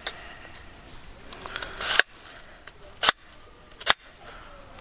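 Kitchen knife cutting through cabbage and knocking on a wooden cutting board: a crunching slice ending in a sharp knock about two seconds in, then two more knocks about a second apart.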